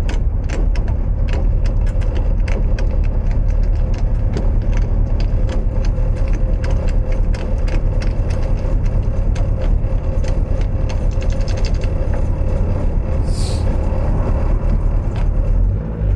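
Toyota AE86 Levin on the move: a steady engine and road rumble, with many light clicks and ticks over it.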